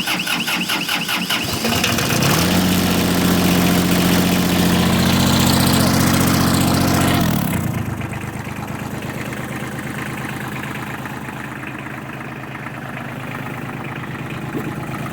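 1993 Kubota tractor's diesel engine being cranked by the starter and catching about two seconds in. It runs at a higher speed for about five seconds, then drops to a steady idle.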